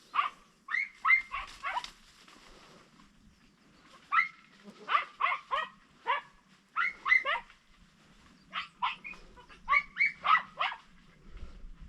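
Podenco hunting dogs giving tongue in bouts of short, high-pitched yelping barks. There are four quick volleys, each call dropping in pitch at its end, typical of hounds on a rabbit's trail.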